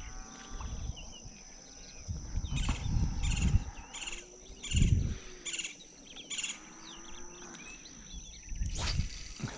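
Outdoor ambience of birds calling, including a run of six evenly spaced repeated calls about two-thirds of a second apart, over a steady high insect drone. Low rumbles of wind on the microphone come and go, and a brief rustle sounds near the end.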